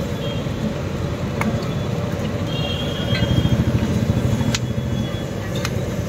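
Roadside street-food stall: a steady low rumble of street noise under chillies frying in a large kadai of oil, with a couple of sharp metal clicks.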